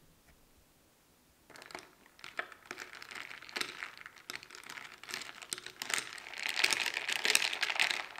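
Metal straw stirring an iced drink in a tall glass: ice cubes clinking and rattling against the glass and straw. It starts about a second and a half in and grows louder toward the end.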